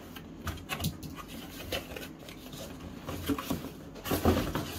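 Cardboard shipping box being handled: scattered light scrapes and rustles of the flaps, with a louder cluster of scraping about four seconds in as the cardboard shoebox is pulled against the box.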